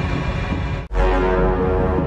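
Intro music for a video title sequence. It cuts out for an instant just under a second in, then carries on.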